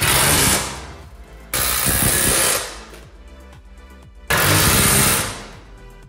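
Cordless impact driver running in three bursts of about a second each, driving screws through an aluminium angle into a garage door panel. Background music is faintly heard between the bursts.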